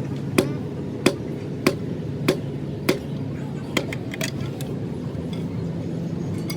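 Hammer blows in an engine repair workshop, struck about once every two-thirds of a second and growing lighter after about three seconds, over a steady low machine hum.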